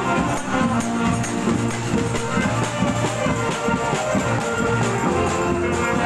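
Taiwanese funeral procession band playing music with a steady beat.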